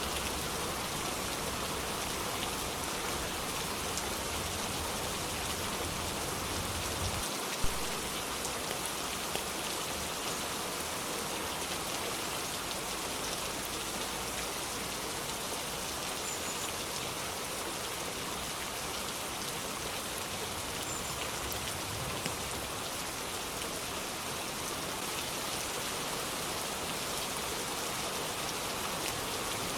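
Steady rain falling, with scattered sharp drop ticks. A low rumble sits under it for the first several seconds and stops abruptly, followed at once by one loud sharp tick.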